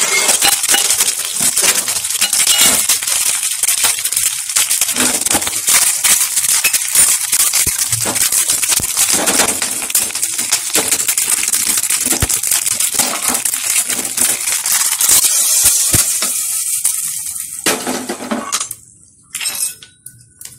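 Mustard seeds, cumin and curry leaves spluttering and crackling in hot ghee in a small tempering pan: a dense, loud crackle that dies away about seventeen seconds in. Near the end come a couple of short sizzles as the tempering goes into the sambar.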